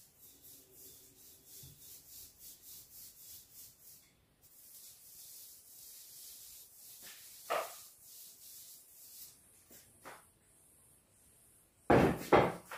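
Paint being stroked onto a door frame: quick hissy rubbing strokes, about three a second, then a steadier stretch of rubbing. Near the end come two short loud bursts, louder than the painting.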